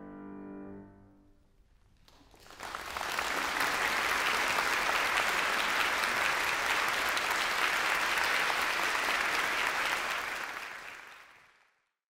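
The last chord of a Steinway grand piano rings briefly and is released about a second in. After a short pause the concert-hall audience breaks into steady applause, which fades out near the end.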